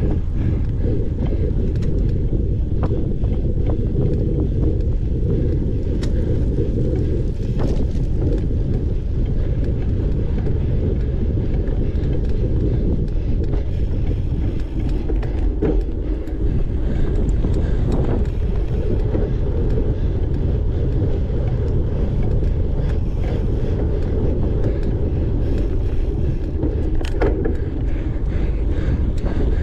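Wind buffeting the microphone of a camera on a cyclocross bike at race speed, over the rumble of the tyres on a dirt course. Scattered small clicks and rattles run through it.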